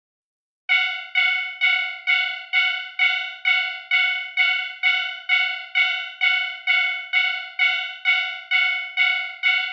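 Japanese railroad crossing alarm sounding its electronic 'kan-kan' tone, the signal that a train is approaching. It repeats about twice a second, each strike fading fast, and starts just under a second in.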